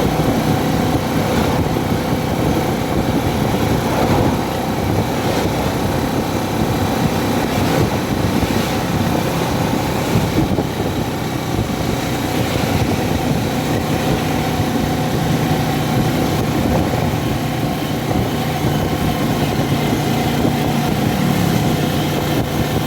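Steady hum of a car's engine and road noise inside the cabin, with no sudden events.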